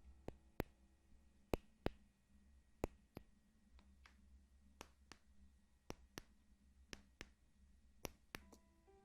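Faint, sparse ASMR trigger clicks and taps, sharp and irregularly spaced, over a low steady hum. A few soft sustained musical tones come in near the end.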